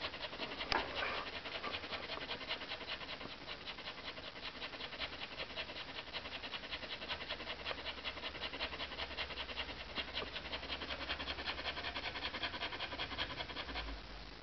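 Samoyed dog panting fast and evenly with her tongue out, cooling down while hot from digging. A brief louder sound comes about a second in, and the panting stops just before the end.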